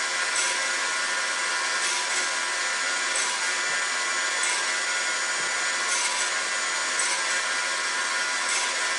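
Table saw motor running steadily with a high whine, blade spinning free, with light brief scrapes recurring every second or so.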